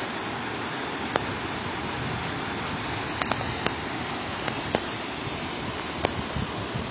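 Waterfall: a steady rush of falling water, with a few short sharp ticks scattered through it.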